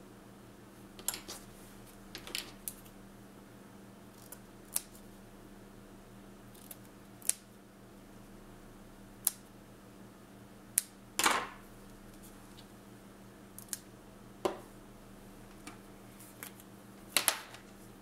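Wax-sealing tools being handled on a craft table: about a dozen sharp, irregular clicks and taps as a wax spoon, brass seal stamps and other small tools are picked up and set down, the loudest knock about 11 seconds in. A faint steady hum runs underneath.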